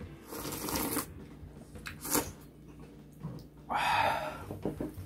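People slurping spicy soft-tofu ramen broth and noodles: a slurp about half a second in, a short sharp one around two seconds, and the longest, loudest slurp nearly four seconds in.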